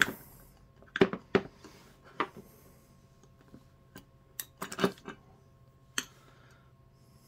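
Metal clamshell housing of a Montgomery Ward Powr-Kraft 3/8-inch drill being worked apart and the halves handled: scattered sharp metallic clicks and knocks, with a small cluster of them between about four and five seconds in.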